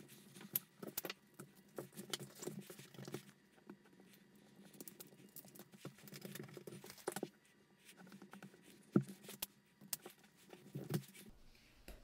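Faint, irregular clicking and clinking of thin steel lock picks as they are pulled from their case and set down on a desk mat, with the sharpest clicks near the end.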